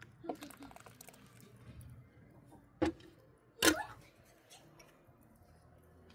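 Two sharp knocks about a second apart, the second louder and briefly ringing, over a faint low hum.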